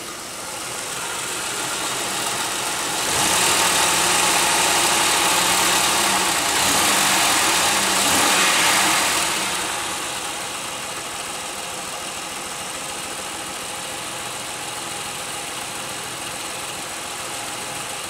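2001 Pontiac Aztek GT's 3.4-litre V6 idling rough with a misfire, shaking and bogging down. It runs louder for about six seconds from about three seconds in, then settles to a steadier idle. The owner puts the misfire down to bad ignition coils or fuel injectors, or else a worn-out engine.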